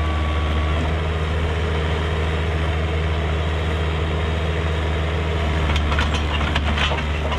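Kubota excavator's diesel engine running steadily at an even pitch, with a few sharp snaps or knocks about six seconds in.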